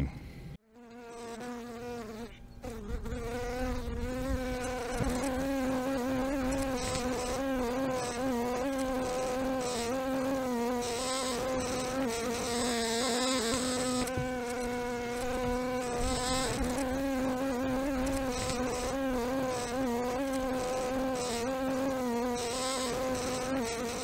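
Honeybees buzzing en masse: a steady, slightly wavering hum that swells in over the first few seconds and then holds.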